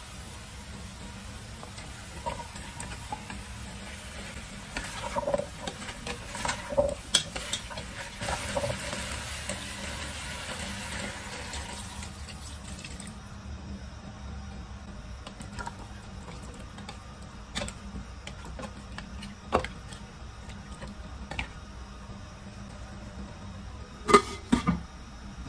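Chicken braising in a stainless steel pot. Scattered clacks of a utensil against the pot give way, about a third of the way in, to a few seconds of water being poured in with a steady rush. Near the end a glass lid is set down on the pot with a couple of loud clanks, the loudest sounds here.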